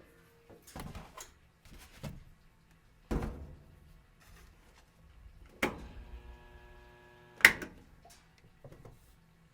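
Old washing machine clunking and knocking at irregular intervals over a low, steady hum. A pitched motor hum sounds for about two seconds just before the loudest clunk, near the end.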